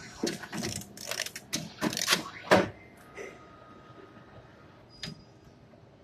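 Automatic wire harness taping machine working: a quick run of mechanical knocks and rattles lasting about two and a half seconds, then a faint steady whine with one click near the end.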